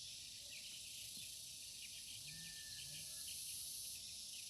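Faint insect chorus: a steady high hiss with rapid little chirps running through it.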